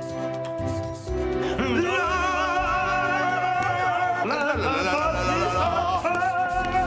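Singing in long held notes with a wide, wavering vibrato, with a short break about four seconds in.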